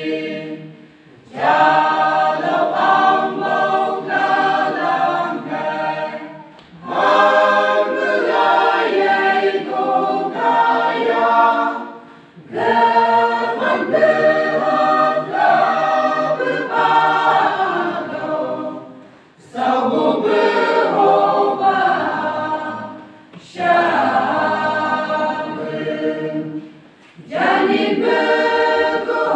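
Church choir of mixed voices singing together, in phrases of about five seconds with short breaths between them.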